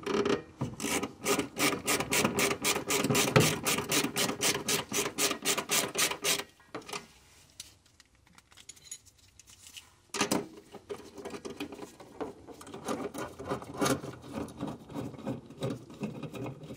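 Ratcheting wrench clicking rapidly and evenly, about five clicks a second, as it turns the adjusting nut at the throttle pedal. After a pause of a few seconds and a single knock, slower, uneven ratchet clicks and rubbing of the wrench on the nut follow.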